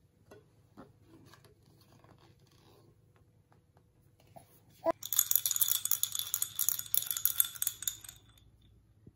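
A knock about five seconds in, then about three seconds of fast, bright rattling and jingling as a toddler opens a MUJI lucky can and handles the small ornament inside.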